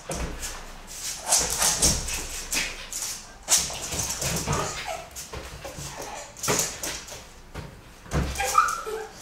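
Jack Russell terrier whining and giving short yips while it chases a balloon, mixed with quick sharp pats and thuds as the balloon is batted by hand and feet move about on a wooden floor.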